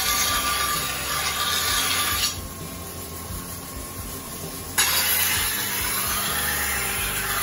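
A large deba knife blade ground on a wet rotating grinding wheel, a loud steady hissing grind of steel on stone. About two seconds in the blade comes off and only the quieter spinning wheel is heard. A little before five seconds the grinding starts again abruptly.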